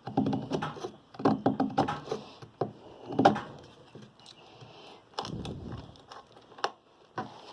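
Boker Magnum Chainsaw Attendant knife chopping into a piece of dried wood: irregular knocks, several in quick succession, with a longer noisy stretch a little after five seconds.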